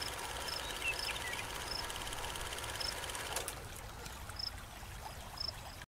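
Steady low background noise with faint, short, high chirps recurring every half second to a second.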